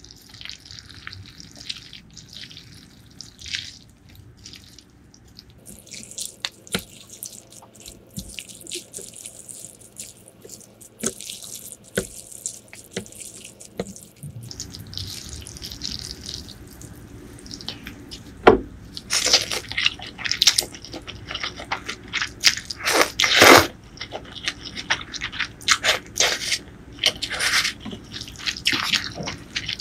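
Wooden chopsticks and spoon mixing and lifting rice noodles in pork noodle soup broth. Wet squelching and dripping, with light clicks of the utensils against the plate. It is sparse clicking at first, then from about halfway through it turns louder and wetter as the noodles are churned and pulled up out of the broth.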